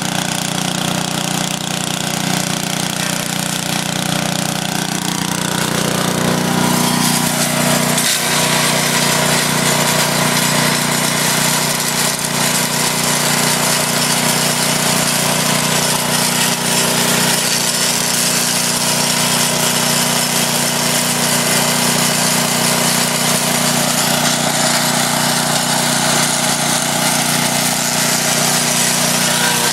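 Wood chipper running steadily, its motor's low hum under a loud grinding noise that grows louder and harsher about six seconds in, with a single knock a couple of seconds later.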